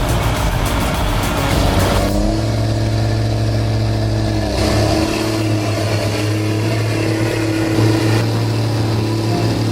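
A heavy machine's engine running steadily, with a low hum and a few abrupt changes in its sound, mixed with background music.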